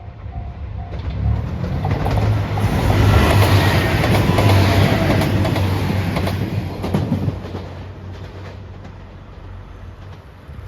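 A train passing over a level crossing. A crossing warning bell is dinging rapidly at first. Then the train's rumble builds, loudest a few seconds in, with wheels clacking over rail joints, and fades away by about eight seconds in.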